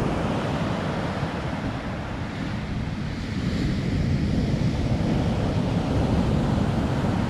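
Ocean surf breaking and washing up a sandy beach, a steady rushing wash, with wind buffeting the microphone.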